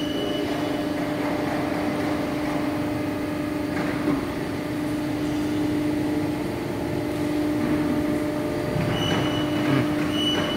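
Hydraulic guillotine shear's power unit running at idle, a steady hum with a constant low tone. Two short high tones sound near the end.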